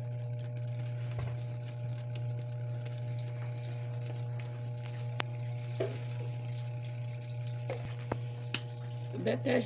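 A steady low electrical hum, with a few faint taps and knocks as a plastic tub of powdered soap is emptied into the soap mixture.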